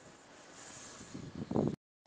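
Pause in a man's talk: faint background hiss, then a short, low voice sound about a second and a half in, after which the audio drops out to dead silence just before the end.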